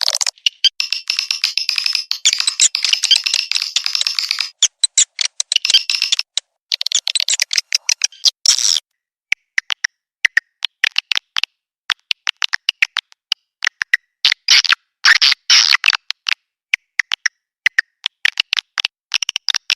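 Swiftlet lure-call recording: rapid high chirps and twittering of swiftlets, the kind of call played to draw swiftlets into a bird house. It is dense and continuous for the first few seconds, then breaks into short bursts of chirps and clicks with brief silences between.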